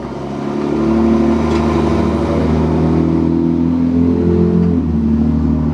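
An engine running steadily, its pitch shifting slightly a couple of times.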